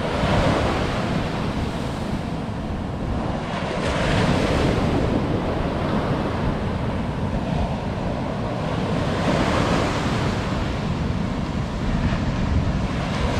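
Ocean surf breaking and washing up the beach, a steady rushing that swells a few times as waves come in, with wind buffeting the microphone.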